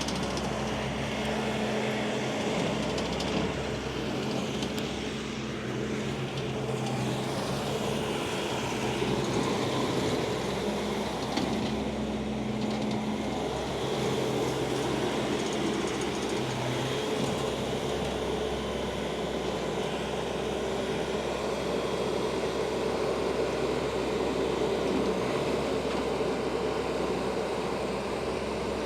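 Bobcat T595 skid steer loader's four-cylinder turbocharged diesel engine (Bobcat D24) running steadily, with a smooth, even note and no audible knocks or misses.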